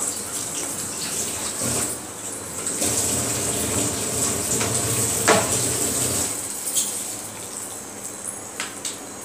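Hot oil sizzling and crackling in a kadai as a tempering of dried red chillies, green chillies, curry leaves and peanuts fries. It is a steady hiss with scattered pops that eases off after about six and a half seconds.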